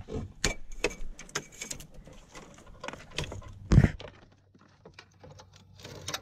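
Vehicle wiring being pulled and handled: a run of rustles, clicks and light knocks, with one louder knock about four seconds in, then quieter small ticks.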